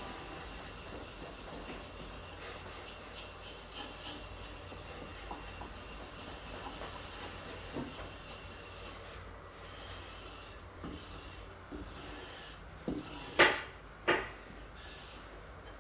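Steel knife blade rubbed along a leather strop loaded with polishing compound: a steady hissing rub at first, then from about nine seconds in, separate strokes roughly once a second, with a couple of sharper scrapes near the end.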